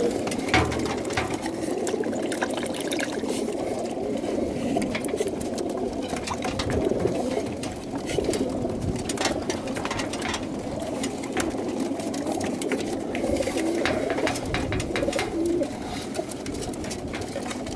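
Many crated racing pigeons cooing together, a dense steady chorus of overlapping coos, with frequent short sharp clicks and taps among them.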